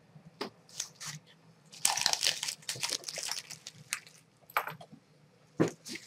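Paper wrapping crinkling and rustling as paper-wrapped glass dishes are handled, densest about two seconds in. Scattered light knocks and taps come before and after it.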